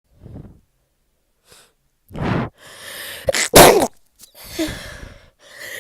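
A person with a heavily congested cold sneezing: catching breaths build to one loud sneeze about three and a half seconds in, followed by breathy, stuffy sounds.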